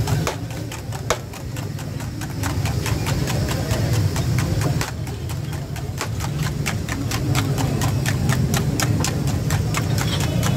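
Eggs being beaten by hand in a steel bowl: the utensil clicks rapidly and unevenly against the metal, over a steady low hum.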